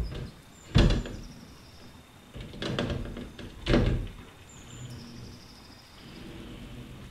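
A glass sliding door panel on roller bearings being set into its aluminium track, with sharp knocks of glass and metal: a loud knock about a second in, a short rattle of knocks around three seconds, and another loud knock just before four seconds.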